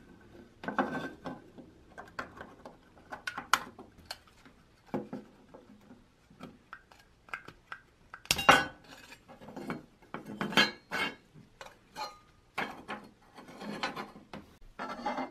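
Thin pressed-steel parts of a 1960s toy truck cab clinking, knocking and scraping by hand as the cab is worked apart into two pieces, in irregular bunches of small metallic clicks. The loudest knock comes about eight seconds in.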